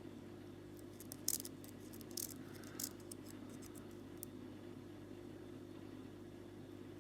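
Small metallic clicks and scrapes of a lock pick and tension wrench working the pins inside an all-brass padlock, clustered between about one and three seconds in, over a steady low hum.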